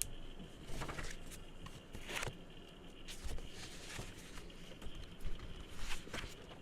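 Fingers tapping and handling small objects: scattered soft taps and brushing sounds, spaced irregularly about a second or more apart.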